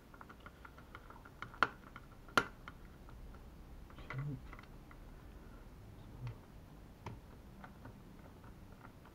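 Small screwdriver working a tiny screw into a quadcopter's plastic shell: a string of light clicks and ticks, with two sharper clicks between about one and a half and two and a half seconds in.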